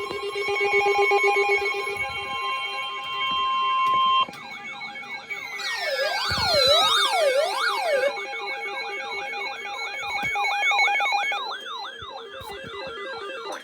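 Several electronic emergency alert tones sounding at once, signalling an incoming weather warning. At first there are steady, overlapping beeping tones. About four seconds in they give way to rapid rising-and-falling siren-like warbles, about three a second, which keep repeating, with a few falling sweeps near the middle.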